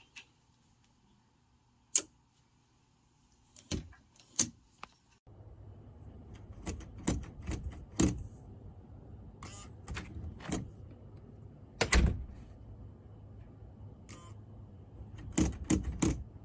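Irregular sharp clicks, knocks and rattles of a fingerprint door lock and its handle being worked, the loudest knock about twelve seconds in and a quick cluster near the end, over a steady background hiss from about five seconds in.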